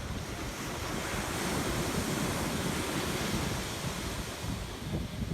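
Surf washing up a sandy beach: the wash of a wave swells about a second in and eases off near the end, with wind rumbling on the microphone.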